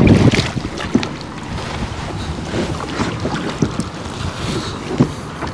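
Shallow lake water splashing and lapping around a kayak being towed by someone wading, with scattered small splashes. Wind buffets the microphone, heavily at first and easing off just after the start.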